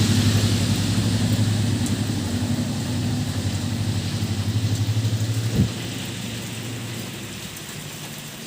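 A vehicle engine running steadily under the hiss of heavy rain. About five and a half seconds in there is a brief thump, after which the engine hum fades and the rain carries on.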